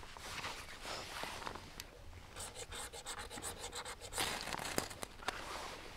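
Scraping and rubbing sounds, with a quick run of scratches about halfway through and a louder scrape shortly after.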